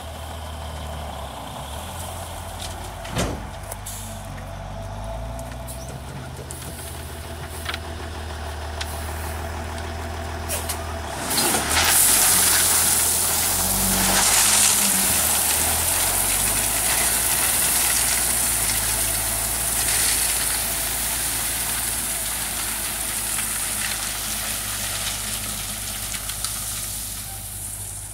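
Dump truck engine running steadily while the raised bed tips out a load of gravel. About twelve seconds in, a loud rushing hiss of gravel sliding off the bed begins and carries on almost to the end. A single knock comes about three seconds in.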